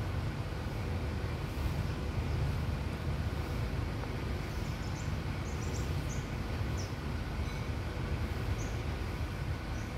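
Steady low outdoor background rumble, with a few short, faint high chirps about halfway through.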